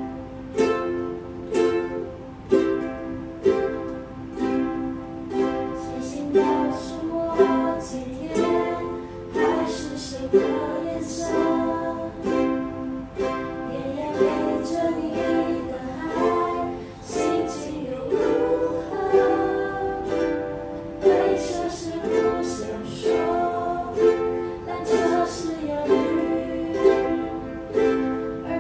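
A group of ukuleles strumming chords together in a steady rhythm, an ensemble playing a slow song in a small room.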